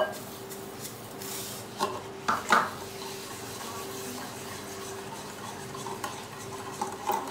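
A wire whisk stirring sugar into beaten eggs in a glass bowl, with a few light knocks of the whisk against the glass, over a steady hum.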